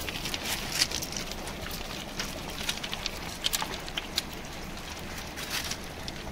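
Shallow river water running over a pebble bed, an even rushing with many scattered sharp clicks.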